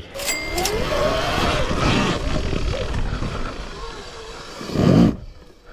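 Sur Ron Ultra Bee electric dirt bike pulling away on a dirt trail: the electric motor whines, wavering up and down in pitch, over a rush of tyre, dirt and wind noise. A loud low surge comes near the end, and the sound cuts off sharply about five seconds in.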